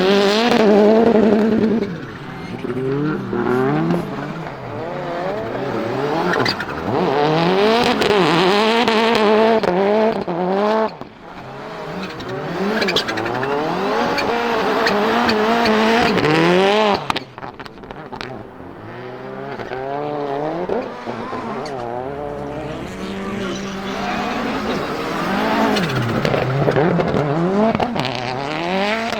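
Turbocharged 2.0-litre four-cylinder Lancia Delta Integrale engine in a Fiat Grande Punto rally car, revving hard through the gears. The pitch climbs and falls back at each shift, with brief lifts off the throttle about eleven and seventeen seconds in.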